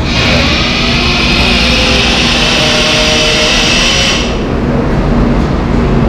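A loud, steady hiss that starts suddenly and cuts off sharply after about four seconds, over a constant low hum.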